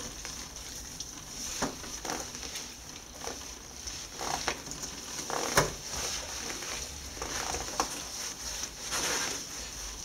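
Hands rubbing and squeezing a soaked cat's fur, working cream rinse in: an irregular wet, squishy rubbing with a sharp click about halfway through.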